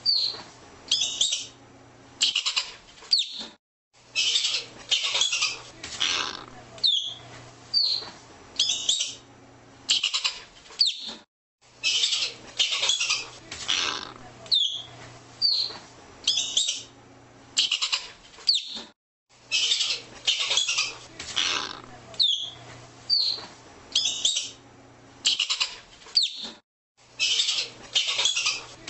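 Arctic ground squirrel calling: short high chirps alternating with harsh chattering bursts, about one call a second.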